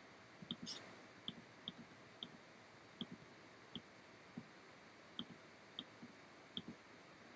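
About ten faint, irregularly spaced computer mouse clicks, each a short tick with a soft thud, over near silence.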